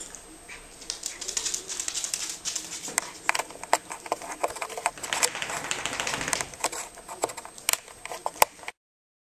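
Two small dogs at play, a Norfolk terrier and a black dog: dense, rapid clicking and scuffling that thins to a few separate clicks near the end, then cuts off suddenly.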